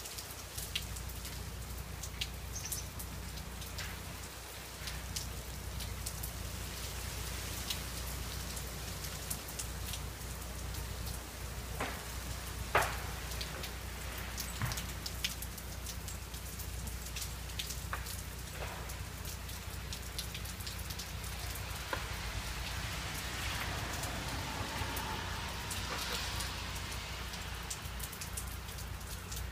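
Freezing rain falling steadily on ice-coated pine trees, a continuous hiss broken by scattered sharp ticks and clicks of drops and bits of ice striking. The sharpest click comes about 13 seconds in.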